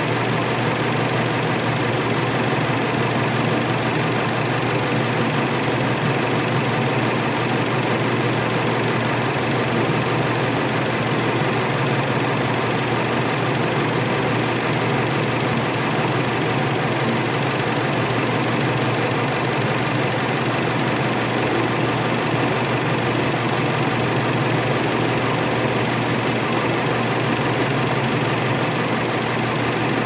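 A steady mechanical drone from a running motor or engine, even and unchanging, with no distinct knocks or clicks.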